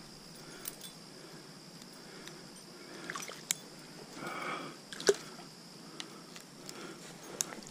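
Faint water sloshing and trickling around a landing net that holds a trout in the stream, with a few light clicks.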